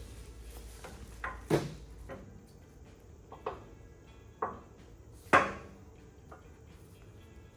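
About five sharp metallic clanks and knocks at uneven intervals as tools and steel suspension parts are handled and set against a truck chassis, the loudest about five seconds in.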